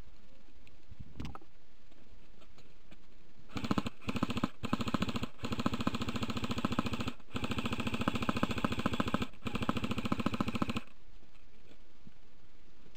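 Airsoft rifle firing on full auto: a fast, even rattle of shots in about five long strings, broken by short pauses. It starts a few seconds in and stops about two seconds before the end.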